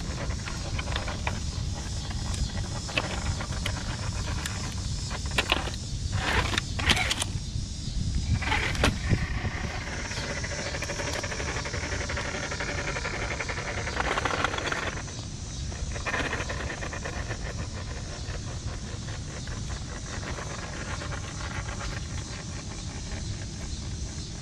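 Scale RC rock crawler built on an RC4WD Marlin Crawler chassis climbing over tree roots and bark: its electric drive whines under a steady low rumble, with clicks and knocks of tyres and chassis on the wood, thickest a few seconds in and again around two-thirds of the way through.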